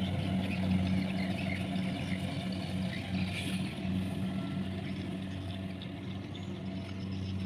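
Kubota rice combine harvester running as it cuts standing rice: a low, steady engine hum.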